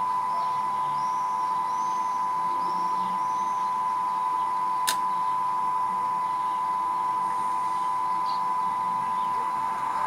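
Sound decoder of an HO-scale EA 060 electric locomotive model playing the standing-locomotive sound through the model's small speaker: a steady electric whine. A single sharp click comes about halfway through.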